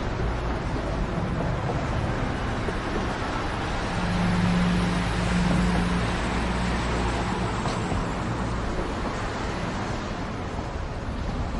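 Steady city street traffic noise, with a motor vehicle's engine growing louder as it passes, about four to seven seconds in.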